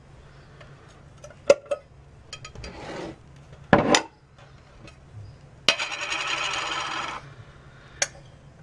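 A glass jar and its metal screw lid handled on a table: scattered clicks and knocks, a louder knock about four seconds in, then a scrape lasting about a second and a half, and a single click near the end.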